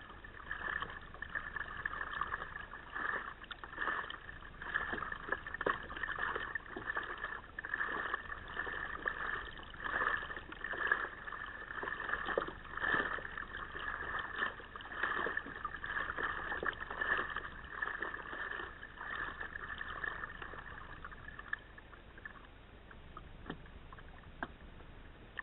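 Kayak paddle strokes: water splashing and sloshing against the hull close to the camera, swelling with each stroke about once a second, until the paddling stops about three-quarters of the way through.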